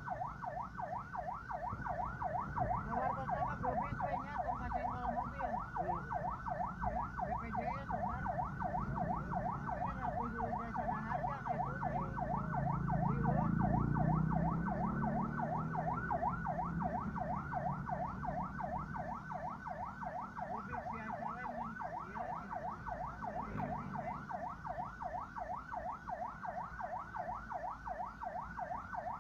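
Ambulance siren in a fast yelp, its pitch sweeping up and down about four times a second without a break, over the low rumble of a car driving; the rumble swells for a few seconds about halfway through.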